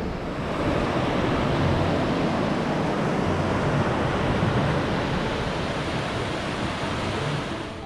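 Steady rushing of a mountain stream, swelling about half a second in and cutting off suddenly at the end, with soft music faintly underneath.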